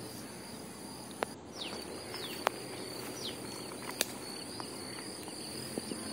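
Open-air ambience with a steady high-pitched insect drone and a few short falling bird chirps, broken by several sharp clicks.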